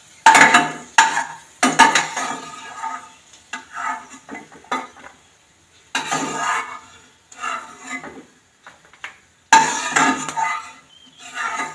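A perforated steel skimmer scraping and knocking against a non-stick kadai and a steel plate as roasted nuts are scooped out of ghee, each stroke with a short metallic ring. There are several separate scrapes a second or two apart, the loudest at the very start and again near the end.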